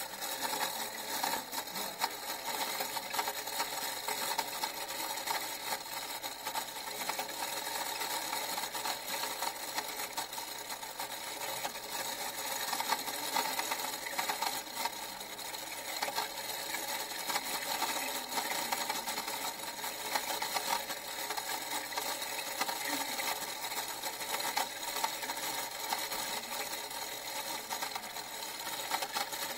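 A machine mechanism running with a continuous, rapid mechanical clatter of many small clicks, steady in level throughout.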